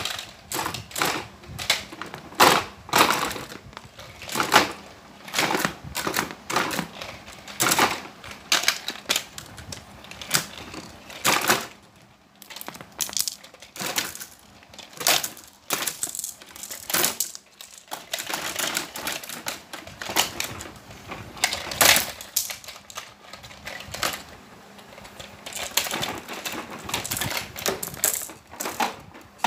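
Hard plastic toy elephants and a plastic toy truck and cage clattering and tapping against each other and on a tile floor as they are handled: irregular clicks and knocks, several a second, with a short lull about twelve seconds in.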